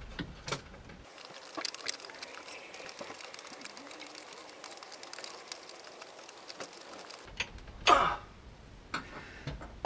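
A small spanner tightening the bolts on a gear-lever mounting plate: light, irregular metallic clicks and clinks of the tool on the bolts and plate, with a brief louder sound about eight seconds in.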